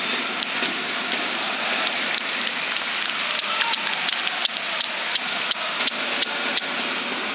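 Crowd noise in a packed football stadium with the match under way. Through the middle and latter part, sharp claps come in a steady rhythm of about three a second.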